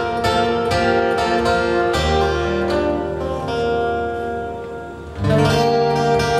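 Solo acoustic guitar fingerpicked in a slow ballad intro. A run of picked notes gives way to a low bass note and chord left ringing and fading for about three seconds. About five seconds in, a strong chord is struck and the picking resumes.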